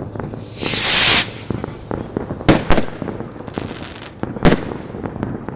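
Fireworks going off: a loud hissing rush about half a second in, then sharp bangs, two close together in the middle and a loud one near the end, over continual small pops and crackles.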